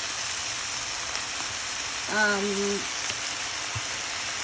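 Ground pork, mixed vegetables and eggplant sizzling in a hot stir-fry pan, a steady frying hiss. About two seconds in, a brief hum sounds over it.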